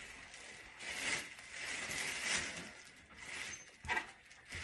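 Plastic packaging bag crinkling and rustling in uneven patches as a large 18-inch subwoofer is worked out of it, with one sharp knock about four seconds in as the heavy speaker is set down.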